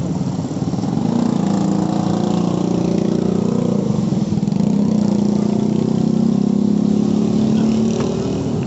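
An engine running close by with a steady hum. Its pitch rises and it gets louder about a second in, holds, then eases near the end.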